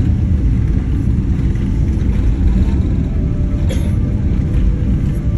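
Steady low rumble inside an airliner's cabin as the jet taxis on the ground after landing.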